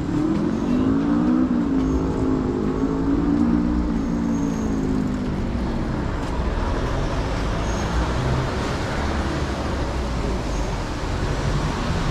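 Road traffic on a city street. A vehicle engine hums past during the first half, its pitch rising slightly and then falling, and a steady traffic rumble follows.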